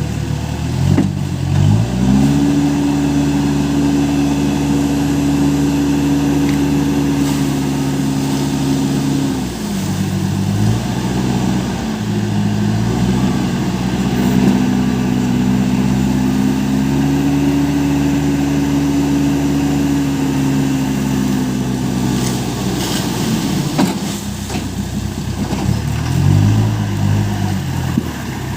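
Case Super M backhoe loader's diesel engine revving up and holding high revs for several seconds, then dropping back. It revs up and holds again, and gives a short rev near the end.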